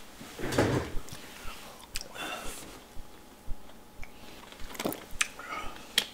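Plastic water bottle handled after a drink: a short breath just after the start, then sharp plastic clicks and crackles as the bottle is handled, with a cluster near the end as the cap is screwed back on.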